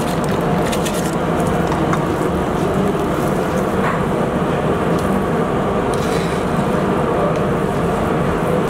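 Steady rushing noise of a large pot of water boiling hard on a gas stove, with a few light clicks near the start as rice is tipped in and stirred with a wire skimmer.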